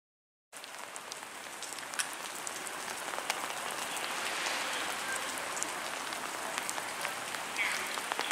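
Steady rain falling, with scattered sharp drips ticking close by; it comes in abruptly about half a second in.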